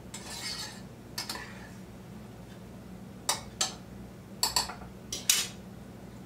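Spoon clinking and scraping against a pot while stirring boiling egg noodles so they don't boil over: a few scattered sharp clinks, most of them in the second half, over a steady low hum.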